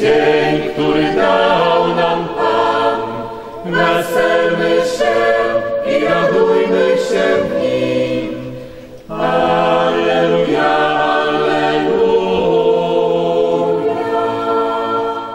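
Mixed choir of men's and women's voices singing in harmony, in long held phrases, with a brief break between phrases about nine seconds in.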